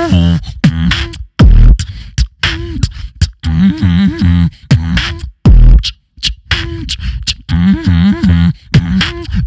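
Solo beatboxing into a handheld microphone cupped at the mouth: sharp kick and snare hits with a hummed bass line that bends up and down in pitch. Two heavy, deep bass booms come about a second and a half and five and a half seconds in.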